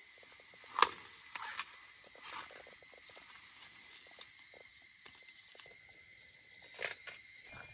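Corn plants rustling as ears are picked by hand, with a sharp snap about a second in, a few softer rustles and a click after it, and another rustle near the end.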